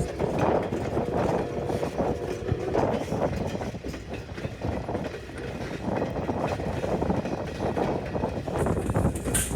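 Railroad train rolling past, its wheels knocking and clicking over the rail joints in an irregular run.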